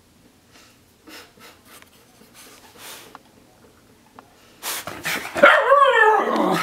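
Freshly bathed miniature schnauzer breathing softly, then about five seconds in letting out a loud bark with a wavering pitch that lasts about a second.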